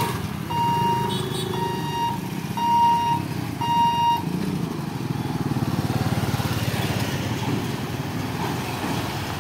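Electronic warning beeper of a level-crossing lifting barrier, a single tone about once a second while the booms rise, stopping about four seconds in. Motorcycle and truck engines run underneath as traffic pulls across the tracks.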